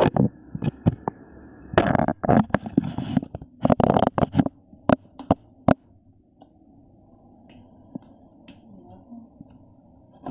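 Handling noises of the phone and its box being put away in the fridge: a run of clicks, knocks and rustling. About halfway through these stop and a faint steady hum is left.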